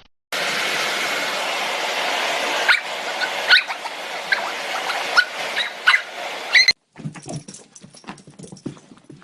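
A dog giving short high-pitched cries, five or six of them over a loud steady rushing noise. The sound cuts off abruptly about two-thirds of the way in, and a run of quieter short, uneven sounds follows.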